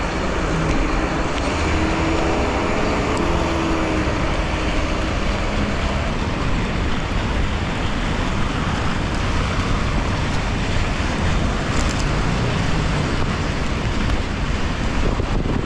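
Street noise of traffic on rain-wet roads: an even hiss of tyres and spray with a low rumble underneath.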